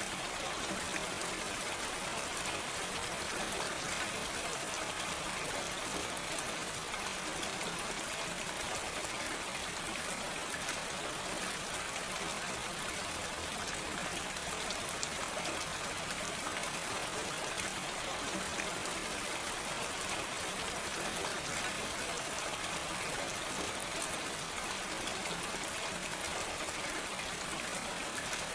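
Steady gentle rain falling, an even hiss of many small drops pattering on surfaces, with no thunder.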